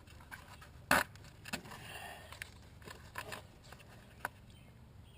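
Hand tools and engine parts being handled during disassembly of the engine's top end: a sharp metallic click about a second in, then several lighter clicks and scrapes spread through the rest.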